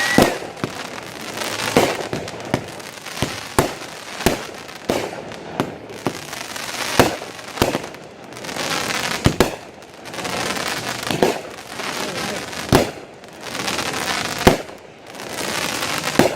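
Fireworks display: a string of sharp shell bursts, some close together, broken by several stretches of crackling lasting a second or two each.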